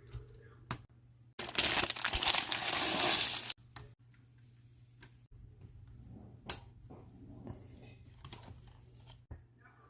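Plastic Lego pieces clattering for about two seconds, as if stirred or poured through by hand, followed by a few scattered sharp clicks of pieces being handled.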